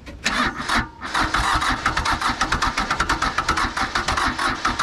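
Electric starter cranking the diesel engine of a Nissan (Hanix) N300 mini excavator: a short burst, a brief stop about a second in, then steady, quick, even cranking. The engine turns over freely now that the water has been cleared from it, and it nearly fires but does not start.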